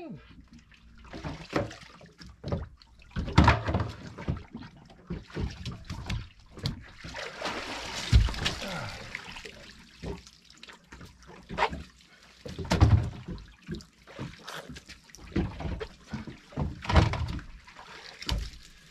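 Water splashing and sloshing at the stern of a small boat as a wetsuited diver hauls himself out of the sea onto the swim platform and climbs aboard, with dripping water and several dull thumps against the hull.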